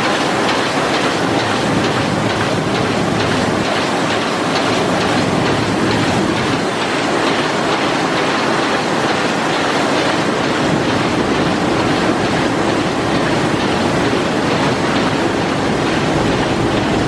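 MAN Roland 708 eight-colour sheet-fed offset printing press running, a steady, even mechanical clatter.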